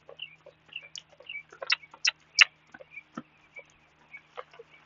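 Scattered sharp clicks and ticks at irregular intervals, loudest a couple of seconds in, from a horse moving over cavalettes on the lunge.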